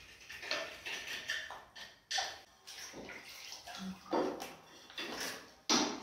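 Hand work with ceramic wall tiles and wet tile adhesive: irregular scrapes and squelches of a trowel in the adhesive, with short knocks of tiles and tools, the sharpest near the end.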